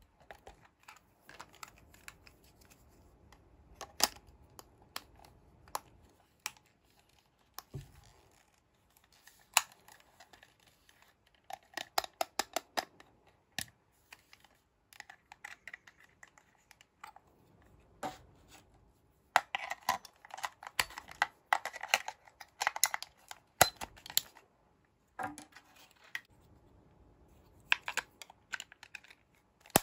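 Hard plastic toy cash register being handled: scattered clicks of its calculator-style buttons, then quick runs of taps, scrapes and clatter as the unit is turned over and its snap-on battery cover is worked off.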